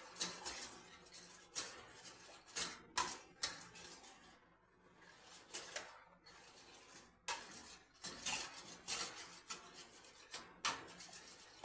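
A spoon clinking and scraping against a vessel in irregular strokes while cooked raw-mango pulp is stirred into water, with a couple of short pauses midway.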